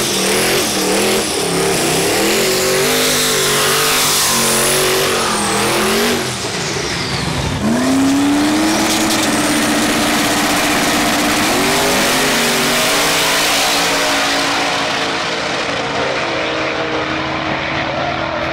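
Drag race cars at the starting line, engines revving unevenly, then launching about seven and a half seconds in. The engine note rises steadily as they accelerate down the track, stepping back twice on gear changes.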